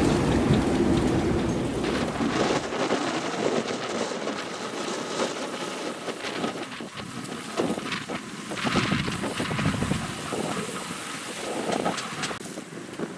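Strong wind buffeting the microphone on a sailing yacht under way, a heavy rumble at first that eases after a couple of seconds. Water rushes and splashes along the hull in irregular surges.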